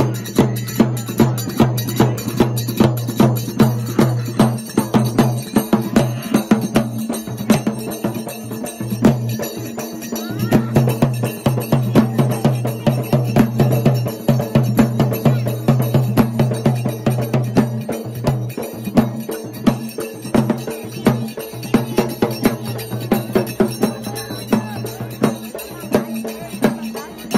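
Music of rhythmic drumming with jingling bells over a steady droning tone, the beats falling about twice a second.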